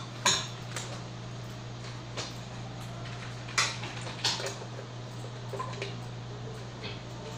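Hard plastic and metal parts being handled and set down: a few sharp clacks, the loudest about a quarter second in and at about three and a half and four seconds, over a steady low hum.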